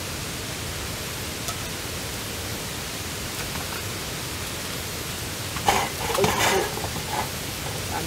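Steady hiss of food frying in a pan on a camp stove. A short clatter comes about six seconds in.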